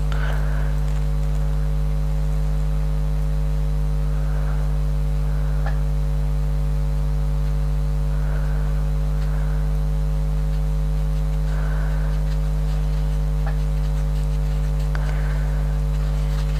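Steady electrical mains hum, a low buzz with its overtones, throughout. Over it come faint brief scratches every few seconds and a few small clicks, from hands cleaning the contacts of a small rotary encoder volume control.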